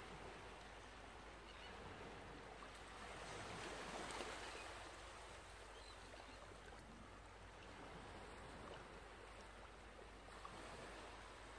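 Faint snips of sewing scissors and rustling cotton fabric as the corners of a sewn flap are trimmed, over a low steady hiss, swelling a little a few seconds in.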